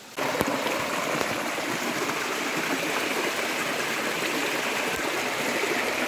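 Flowing water rushing steadily, as at a stream or waterfall, starting abruptly just after the beginning.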